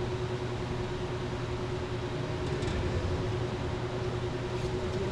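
Steady machine or vehicle running noise: an even rumble and hiss with a constant hum and one steady mid-pitched tone.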